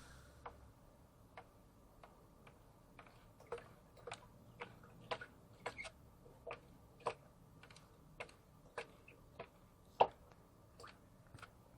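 Cat pawing at water in a clear plastic hammock: light, irregular ticks and plinks, about one or two a second, the loudest about ten seconds in.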